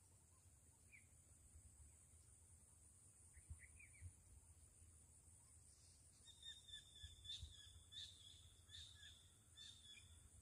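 Faint outdoor ambience: a steady high-pitched insect drone with scattered bird chirps, then a bird calling repeatedly over the last few seconds. Light wind rumble sits underneath.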